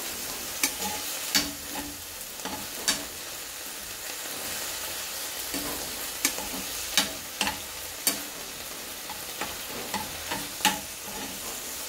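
Spatula stirring flaked tuna, onion and tomato frying in a little oil in a non-stick pan: a steady light sizzle, broken by irregular sharp clicks and scrapes of the spatula against the pan.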